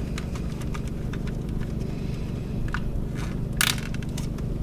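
Electrical tape being pulled off the roll and wrapped around crimp connectors: a run of small crackles and clicks, with a few louder crackling pulls past the middle. A steady low hum runs underneath.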